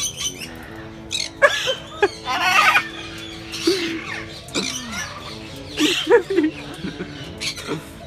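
A white cockatoo squawking repeatedly in short bursts, one longer than the rest, over steady tones of background music.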